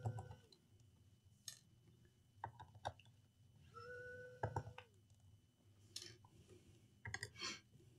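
Electric precision screwdriver whirring in short runs of about a second as it backs out laptop bottom-cover screws: one run ending about half a second in, another around four seconds in. Light clicks and taps of the screws and tool fall in between, with a small cluster near the end.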